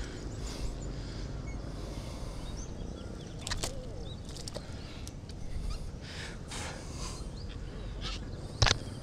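Small splashes and rustles of wet weeds as a hand works in shallow marsh water, with a sharp knock near the end. A low steady rumble of wind on the microphone runs underneath, and faint bird chirps come and go.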